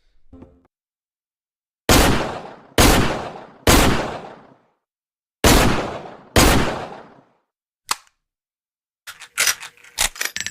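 Five shots from a Taurus Model 605 .357 Magnum snub-nosed revolver, three in quick succession and then two more after a short pause, each with a long decaying echo. A single sharp click follows, then a rattle of light metallic clicks near the end.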